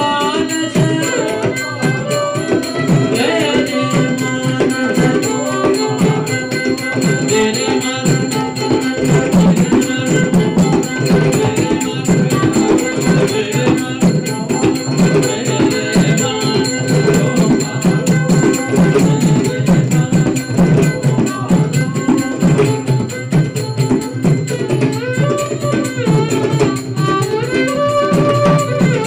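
Carnatic devotional music: mridangam drumming and small hand cymbals keeping a steady rhythm under a melodic line, with violin accompaniment.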